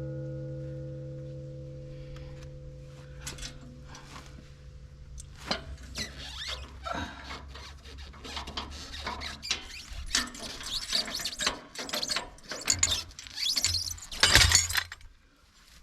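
Steel pin squeaking and squealing as it is worked in its tight hole, metal grinding on metal, with knocks. The squealing starts about five seconds in and is loudest near the end. Before that, a ringing tone fades away.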